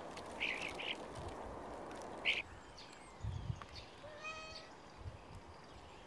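A few short calls from common starlings feeding, then a domestic cat gives one short meow about four seconds in.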